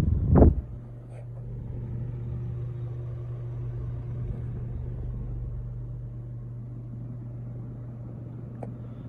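Emerson Northwind ceiling fan motor running on low, a steady hum with a faint audible motor whine above it. A short thump comes just at the start.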